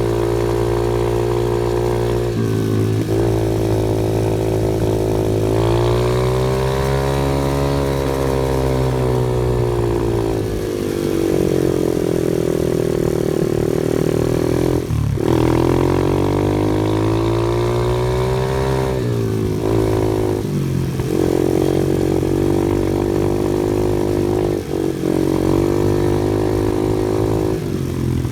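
Off-road vehicle engine running continuously, its pitch rising and falling several times as throttle and speed change.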